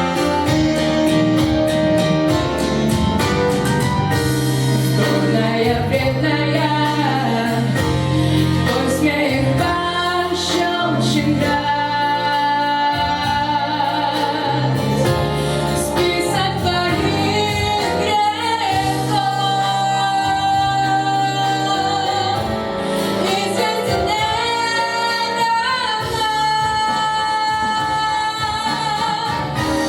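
A young girl sings a song solo over instrumental accompaniment, holding long melodic lines above a steady bass.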